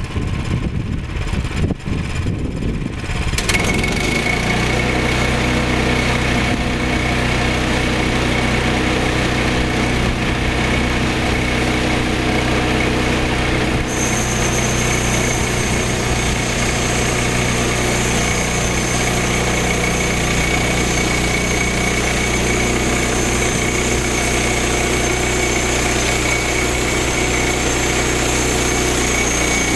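Small gasoline engine of a portable bandsaw sawmill, ragged at first and then running steadily under throttle from about three and a half seconds in. Halfway through, a high steady whine joins it.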